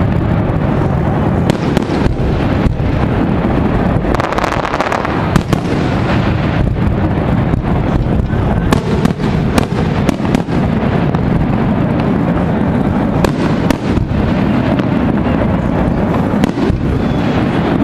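Fireworks display: aerial shells bursting in many sharp bangs and crackles at irregular intervals, over continuous low noise.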